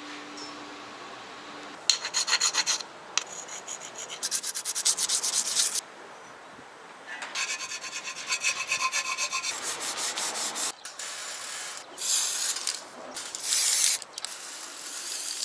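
Hand sanding a motorcycle part: quick back-and-forth rubbing strokes in several runs of a few seconds each, with short pauses between, starting about two seconds in.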